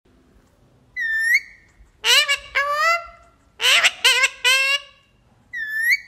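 Indian ringneck parakeet calling: a short whistle that dips and rises about a second in, two harsh calls around two seconds, three quick calls around four seconds, and the whistle again near the end.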